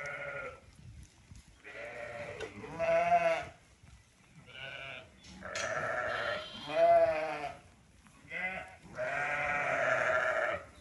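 Ewes and lambs bleating in a shed, about eight calls one after another with short gaps, some long and wavering in pitch.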